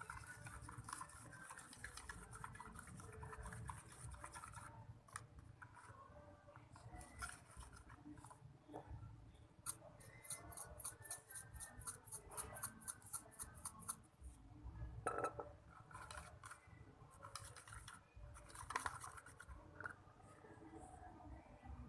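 Homemade glue-free slime being handled, faint sticky clicking and squishing, with a quick run of clicks at about four a second midway.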